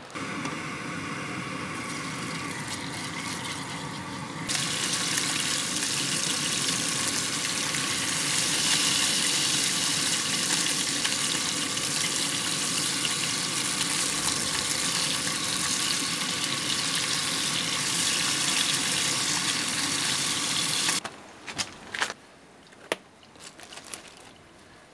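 Herring fillets frying in a pan on a gas canister camp stove: a steady sizzling hiss, softer at first and louder from about four seconds in, that cuts off suddenly near the end. A few faint clicks and rustles follow.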